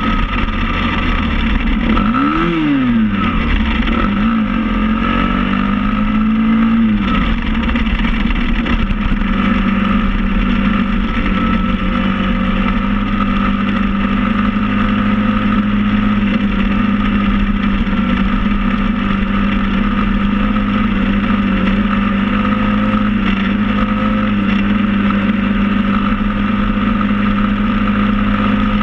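SSR 110 pit bike's small four-stroke single-cylinder engine running under way. Its note swoops up and down a few times in the first several seconds, then holds steady at cruising speed.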